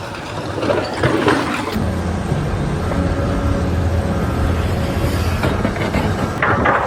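A vehicle or machine engine running steadily, a low hum with a faint high whine over it.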